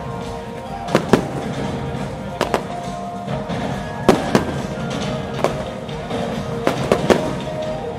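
Aerial fireworks shells bursting with about ten sharp bangs, several coming in quick pairs, over music with held notes.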